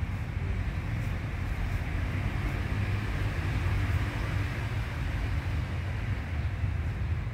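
Steady low background rumble with an even hiss, with no distinct events.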